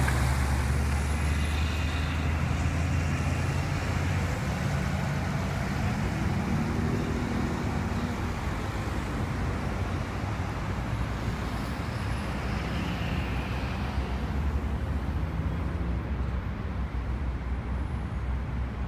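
Road traffic: a city bus's engine rumbles low as it pulls away, fading over the first few seconds. Cars and vans then pass slowly, over a steady wash of highway traffic noise.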